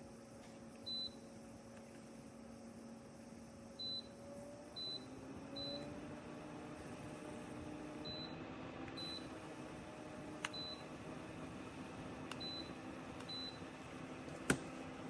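Personal evaporative air cooler fan running with a steady hum while its controls give nine short high beeps, one per button press. About five seconds in, the fan motor's hum rises in pitch as the speed is stepped up. A few sharp clicks, the loudest near the end.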